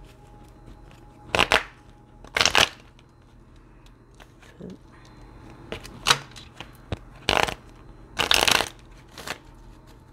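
Tarot deck being shuffled by hand: about six short bursts of cards slapping and sliding, unevenly spaced, the longest about eight seconds in.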